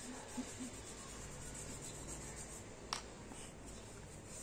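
Soft pastel stick rubbing across sketchbook paper as it is coloured in, a faint dry scratching, with a sharp click about three seconds in.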